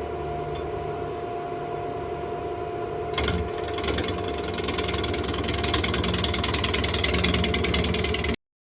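Wood lathe running at about 600 rpm with a steady hum. About three seconds in, a tool meets the spinning bowl blank and a loud, fast, rhythmic rattling sets in, growing louder until it cuts off abruptly near the end.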